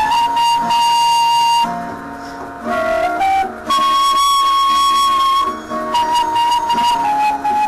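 Flute playing a melody of long held notes along with a recorded backing track, with a quieter stretch of shorter, lower notes about two seconds in.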